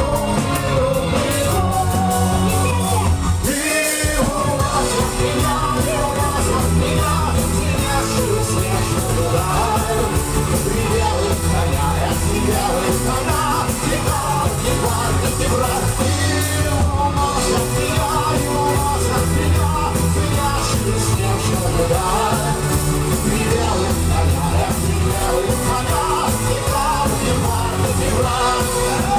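Live rock band playing a song with a lead singer, over bass and drums; the low end drops out briefly about four seconds in.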